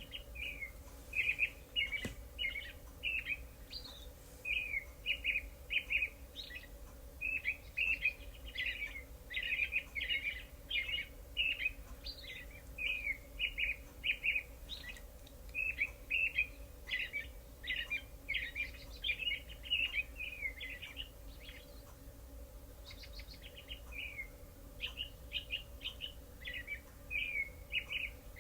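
Recorded birdsong soundscape from the Sleepjar sleep-sounds skill played back through a speaker: many short, high chirps in quick runs, easing briefly about two-thirds of the way through. A faint steady hum runs underneath.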